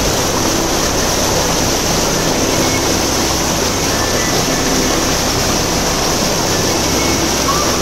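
Fast mountain stream rushing over boulders below a waterfall: a steady, even rush of water.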